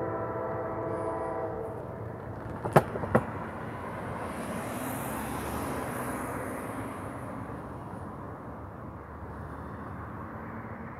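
A CSX locomotive's air horn sounds a chord of several tones that cuts off a couple of seconds in. About a second later come two sharp thumps close together as a car's wheels hit the crossing rails, and the car's tyre noise hisses past.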